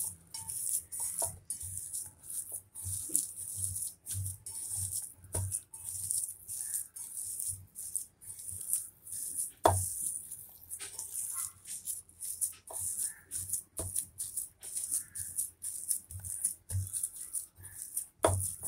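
Hand mixing mashed boiled potato with dry spices and garlic paste in a steel bowl: irregular squelching and rustling as the fingers squeeze the mash and scrape the bowl, with soft low knocks throughout.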